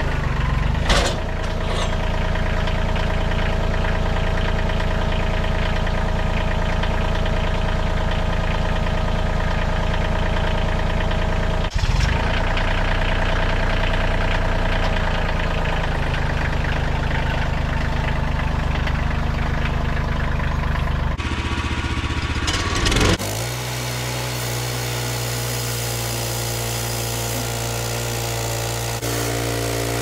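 Tractor engine running steadily, with a couple of sharp knocks about one and twelve seconds in. Near the end it gives way abruptly to a different steady machine sound with more hiss.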